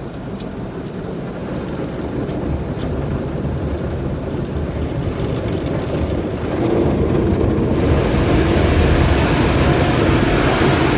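Automatic car wash machinery running around a car, heard from inside the cabin: a low rumble that grows louder, then a steady rush of water spraying onto the car from about eight seconds in.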